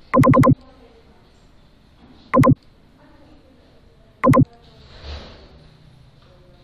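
Loud electronic beeps at a steady pitch: a quick run of about four, then single beeps about two seconds and four seconds in. A short, softer hiss follows near the end.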